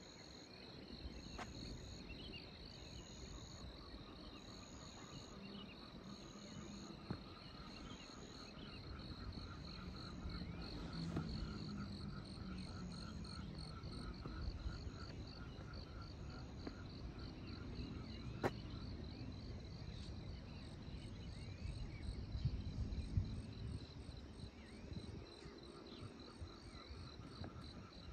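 Insects chirring in rapid, even pulses, with a higher pulsing call repeating about every second and a half and a lower pulsing call joining a few seconds in. Under it runs an uneven low rumble, and there is one sharp click about two-thirds through.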